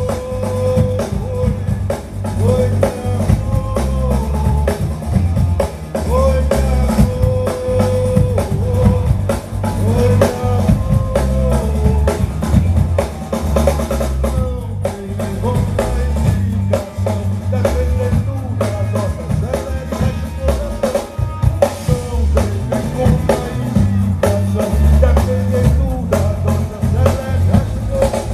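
A manguebeat rock band playing live: a driving drum kit with bass drum and snare rimshots over a heavy bass line, with a melodic line weaving above.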